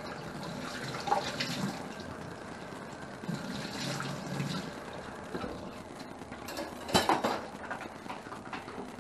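Kitchen tap running into a stainless steel sink while a knife is rinsed under it. There are sharp knocks about a second in and again about seven seconds in.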